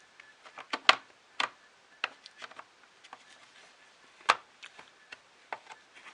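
Irregular sharp clicks and taps of hard plastic parts being handled and pressed into place during assembly, the loudest about a second in and again past four seconds.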